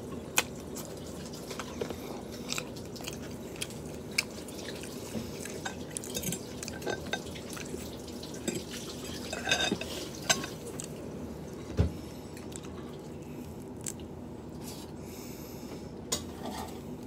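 Eating a seafood boil: scattered small clicks and crackles as shrimp and crab shells are handled and peeled, light fork and dish taps, and chewing, over a faint steady hum.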